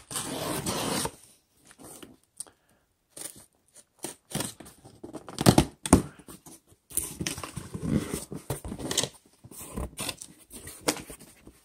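Razor blade slitting the packing tape along a cardboard shipping box in irregular scraping and tearing strokes, then the cardboard flaps being pulled open with scraping and rustling near the end.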